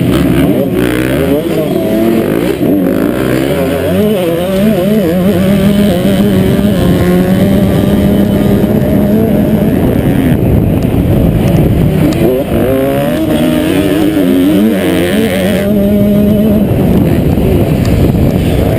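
Motocross bike engine at race pace, heard from a helmet-mounted camera, its pitch rising and falling over and over as the rider opens and closes the throttle and shifts through corners and straights.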